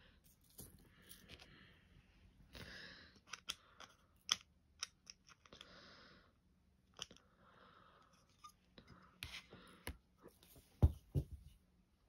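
Diamond-painting work: scattered light clicks and taps of resin drills being pressed onto the canvas, with soft rustling of the canvas's release paper. Near the end comes a louder knock as a plastic drill tray is set down on the canvas.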